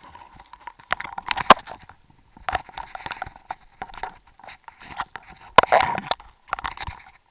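Irregular clicks, knocks and crackling from scuba gear and the camera housing being handled and bumped about underwater. The sharpest knocks come at about a second and a half in and again about five and a half seconds in.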